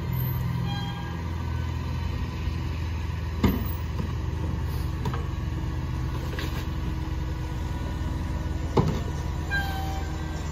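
Mack MRU garbage truck idling steadily. About three and a half seconds in, and again near nine seconds, there is a sharp knock: plastic wheeled trash carts banged against the McNeilus rear loader's hopper as they are emptied by hand.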